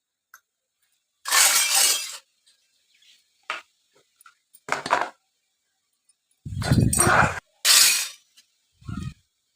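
Toy kitchen set pieces and their packaging being handled: a series of short crinkling, clinking bursts with silence between, one with a dull knock under it about two-thirds in.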